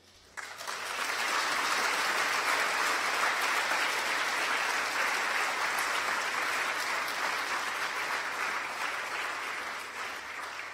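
Audience applauding. The clapping swells in about half a second in, holds steady, and starts to die away near the end.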